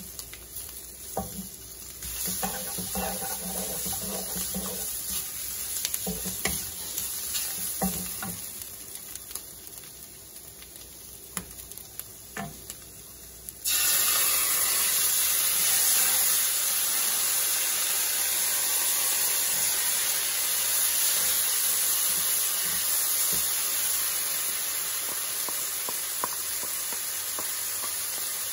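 Shrimp and scrambled egg sizzling in a hot nonstick wok, with a wooden spatula stirring and scraping the pan. About halfway through, chili sauce poured into the pan makes the sizzling jump suddenly much louder, into a steady hiss that carries on.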